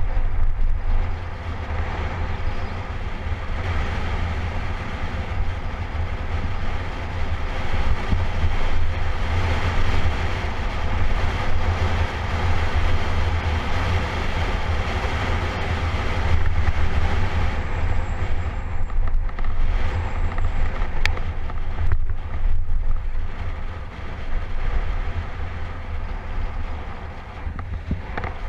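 Wind rushing over an action camera's microphone on a fast road-bicycle descent, a loud steady rumble with buffeting, mixed with road and tyre noise.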